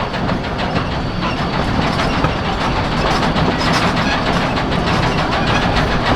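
Narrow-gauge train rolling along, its wheels clattering on the rails with a steady rumble and rapid clicking, heard from an open-air car in the train.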